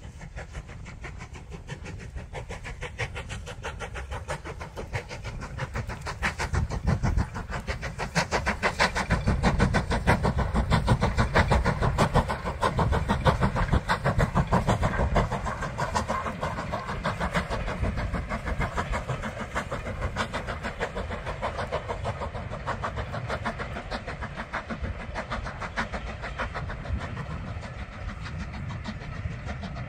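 Steam-hauled train passing, a fast rhythmic beat of the locomotive working and the wheels running on the rails. It grows louder to a peak about ten to fifteen seconds in, then fades as the train draws away.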